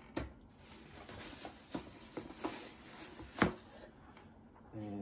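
Rustling and light clicks and knocks as plastic golf discs and packaging are handled inside a box, with one sharper click about three and a half seconds in.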